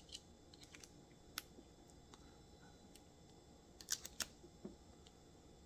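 Faint, sharp clicks and taps of a Milwaukee 13-in-1 multi-bit screwdriver being handled as its bits are taken out and swapped, with a quick cluster of clicks about four seconds in.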